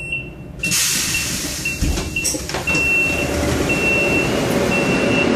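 Metro train noise, a steady rush that comes up sharply about a second in, with a short high electronic beep repeating about once a second.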